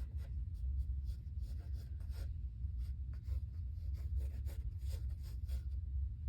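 Pencil sketching on sketchbook paper: quick, irregular scratchy strokes, over a steady low hum.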